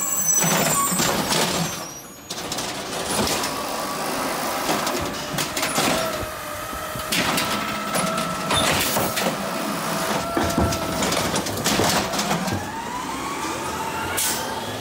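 Automated side-loader garbage truck running its hydraulic lifting arm: a whine that falls at the start, holds steady, then rises near the end, with repeated knocks and bangs as the cart is lifted and dumped.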